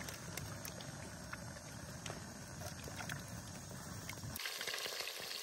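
Steady hiss and rumble of a small gas burner on an LPG cylinder, running under a cooking pot, with a few light knocks as tomatoes are set on a plastic plate. About four seconds in, the low rumble drops away and a brighter hiss remains.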